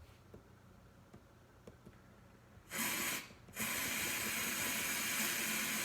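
Aerosol spray can being sprayed: a short spray of under a second about two and a half seconds in, then after a brief pause a longer steady spray.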